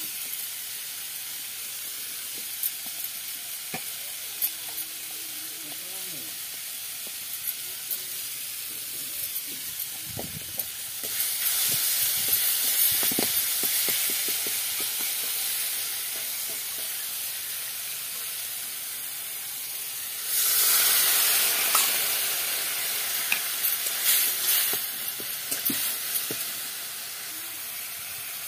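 Tomato-and-spice masala frying in a steel kadai with a steady sizzle. The sizzle swells louder twice, about a third of the way in and again about two-thirds through. A steel ladle stirring and scraping the pan gives sharp clicks.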